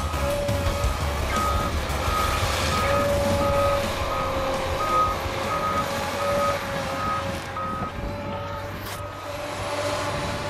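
Tigercat 880 shovel logger's backup alarm beeping in a steady rhythm, about three beeps every two seconds, over the low steady drone of the machine's engine; the beeping stops near the end.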